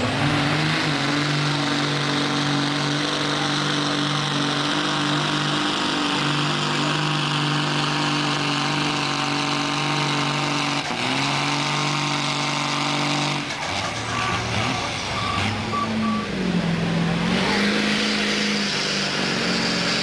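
Diesel pickup truck engine held at high revs under full load as it drags a truck-pull sled, the pitch climbing at the start and then staying steady. About two-thirds of the way in the revs drop off as the pull ends, and a few short high beeps follow.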